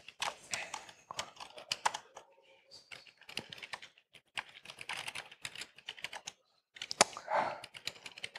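Typing on a laptop keyboard: quick bursts of keystrokes with brief pauses between them, and one louder keystroke about seven seconds in.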